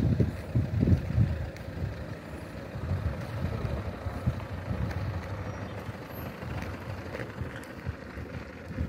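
A car driving, its road and engine noise heard from inside the cabin, with uneven gusts of wind rumbling on the microphone, strongest in the first second or so.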